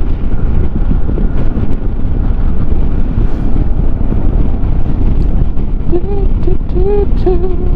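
Wind noise buffeting a helmet microphone on a moving Yamaha XMAX scooter: a loud, steady rush with deep rumble, over the road and riding noise. A voice cuts in briefly near the end.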